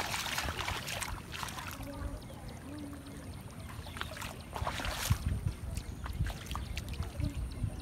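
Water splashing and trickling as a cast net is hauled in through shallow floodwater, with louder splashes at the start and again about five seconds in.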